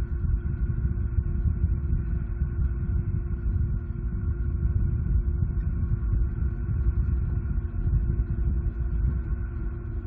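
Steady low rumble with a faint constant hum: the background noise picked up by an outdoor nest-cam microphone.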